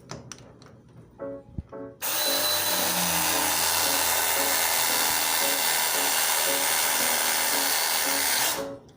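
A power tool runs steadily for about six and a half seconds, starting sharply about two seconds in and cutting off near the end, over background music.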